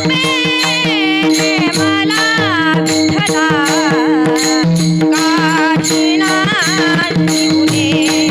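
Woman singing a Varkari kirtan melody with many bending ornaments, over a steady held drone, with drum strokes and sharp metallic beats keeping time.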